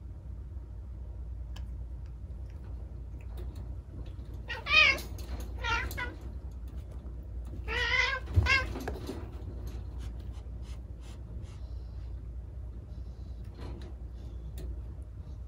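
Two house cats squabbling: a cat gives three wavering yowls, about four and a half, five and a half and eight seconds in, with a short thump during the scuffle around eight seconds.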